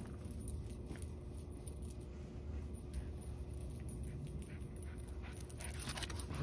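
A Cavalier King Charles spaniel on a fetch run, its collar tags jingling as quick little clinks that gather near the end as the dog comes in close with its toy.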